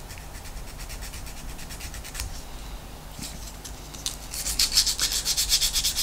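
Small 3D-printed plastic model part being rubbed by hand with a small abrasive tool, in quick, even back-and-forth strokes: its gluing edges are being dressed to remove shine and leftover tabs and give the glue a key. The strokes are faint at first and grow much louder about four and a half seconds in.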